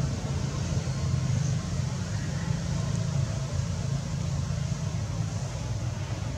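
Steady low rumble of a running engine, even in level throughout.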